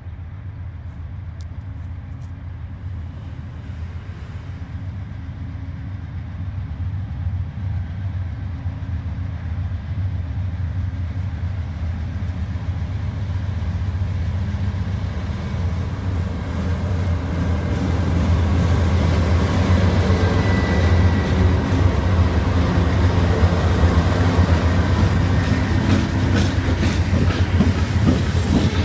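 Freight train's diesel locomotives approaching and passing, their low engine rumble growing steadily louder. Near the end the wheels click and clatter over the rails as the locomotives go by.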